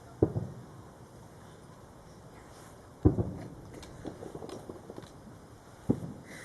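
Distant fireworks bursting: three dull booms about three seconds apart, the middle one loudest and followed by a scatter of faint crackling pops.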